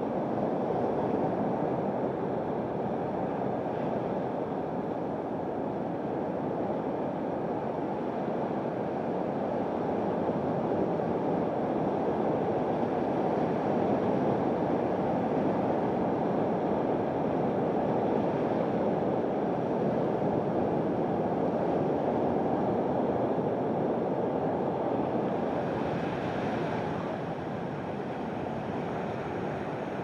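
Steady rushing of sea water washing among shoreline rocks, with the surf's hiss swelling a little near the end.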